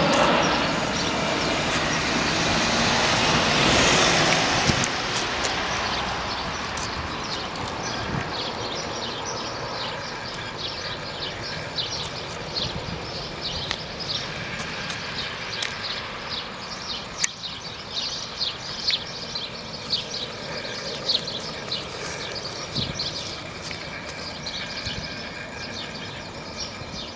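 Four-turbofan jet noise of a Boeing C-17A Globemaster III, loud at first and fading away over about five seconds as the aircraft moves off. After that, many short high bird chirps over a low background hum.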